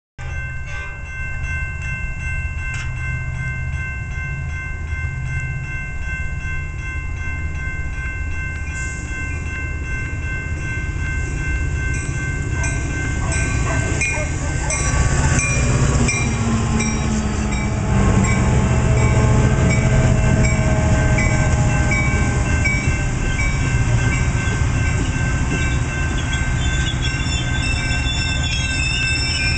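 A Metra commuter train, a diesel locomotive pulling bilevel passenger coaches, approaching and passing along the platform. The low rumble grows louder and is loudest about 18 seconds in as the locomotive goes by, then the coaches roll past.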